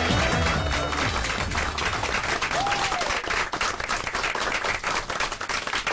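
A crowd applauding, dense clapping, with music dying away about a second in.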